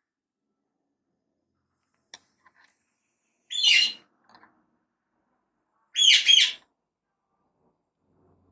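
A bird chirping in short, high calls: one about three and a half seconds in and a double call a little past six seconds, with a few faint clicks around two seconds.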